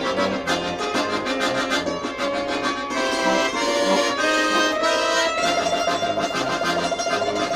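Lively instrumental folk music led by an accordion: a melody over a bouncing, alternating bass, settling onto a long held note about five seconds in.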